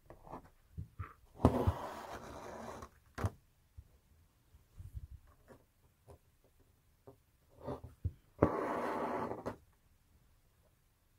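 Metallic sqali embroidery thread drawn through fabric stretched tight in an embroidery hoop: two long rasps, about a second and a half in and again near the end, each starting with a sharp click. Light clicks and taps of the needle and hand on the taut fabric come between them.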